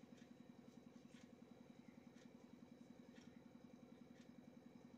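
Near silence: faint room tone, a steady low hum with soft ticks about once a second.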